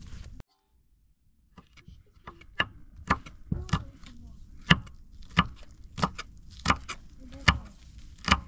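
Knife chopping on a cutting board in steady, even strokes, about one and a half a second, starting a second and a half in after a brief silence.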